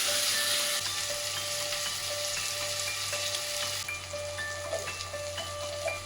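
Food sizzling in a hot pan, a steady high hiss of frying, with soft piano background music over it.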